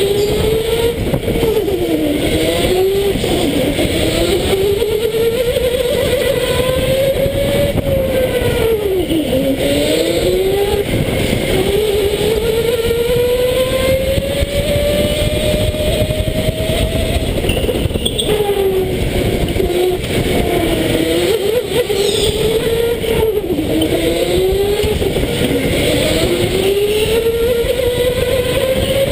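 Electric indoor go-kart's motor whining from the driver's seat, its pitch climbing slowly as the kart speeds up and dipping quickly at each corner, again and again through a lap. A steady rumble of tyres and vibration runs underneath.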